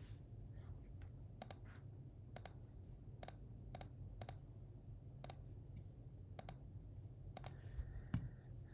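Scattered computer clicks, a dozen or so spaced about half a second to a second apart, over a low steady hum.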